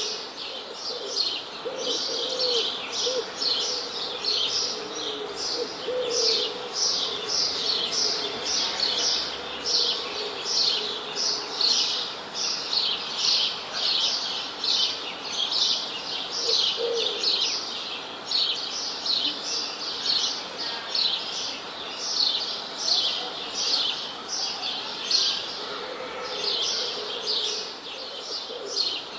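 A chorus of small birds chirping continuously, dense quick high notes several a second, with a few faint low calls in the background now and then.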